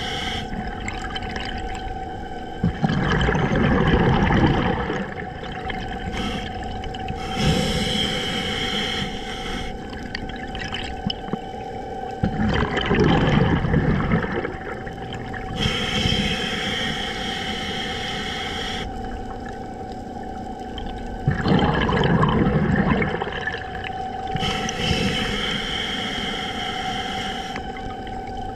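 Scuba diver breathing through a regulator underwater: three times, a loud low rush of exhaled bubbles, each followed a few seconds later by a hissing inhale. A steady faint hum runs underneath.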